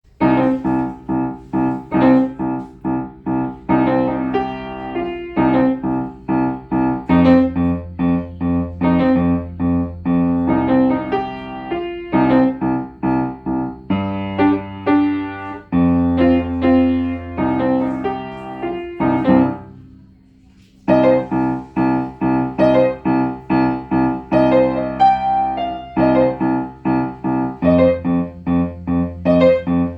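Solo piano playing a bouncy piece in even repeated notes over a sustained bass line. About two-thirds of the way through, the notes ring out and fade in a short pause, and then the playing resumes.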